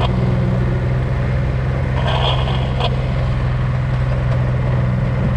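Steady low engine drone of the slow-moving vehicle carrying the camera across the paddock, with a brief louder rush of noise about two seconds in.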